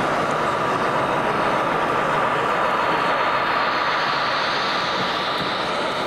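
Model train running on an exhibition layout: a steady rolling rumble over the general noise of a busy hall.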